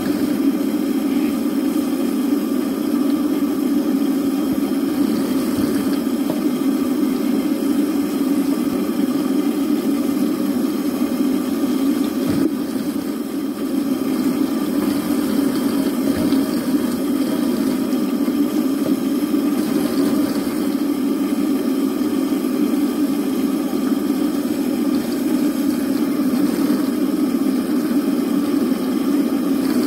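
Water running steadily from a sink faucet, pouring over wet hair as it is rinsed under the tap.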